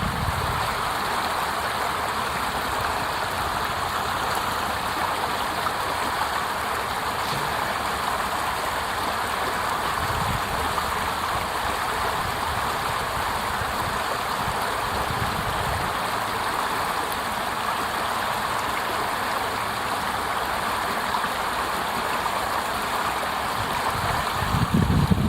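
Small water cascade splashing steadily over rocks, an even rushing sound. A few brief low gusts of wind hit the microphone, the strongest right at the end.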